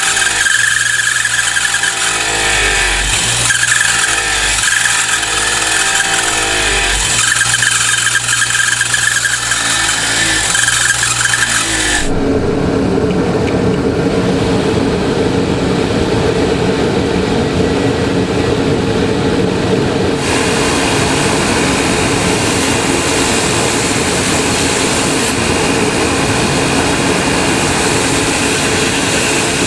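Electric grinder running and grinding steel knife blades, a steady high-pitched grinding squeal over the motor's hum. The sound shifts abruptly about twelve seconds in and again a little later.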